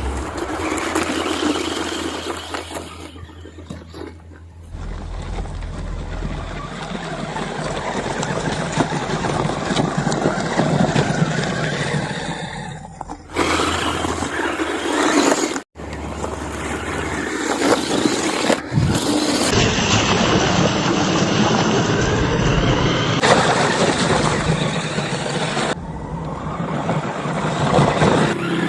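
1/10-scale 4WD radio-controlled car driving over rough ground: its motor running, with tyres and chassis scrabbling over dirt and rocks. The sound comes in several clips cut together, so it changes abruptly every few seconds, with a brief dropout about midway.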